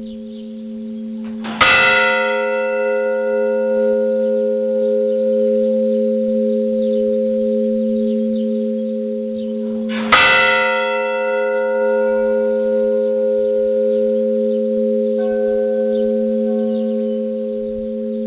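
Monastery bell ringing: a bell struck twice, about eight and a half seconds apart, each stroke ringing on and fading slowly over a steady deep hum. A fainter, higher-pitched bell sounds about fifteen seconds in.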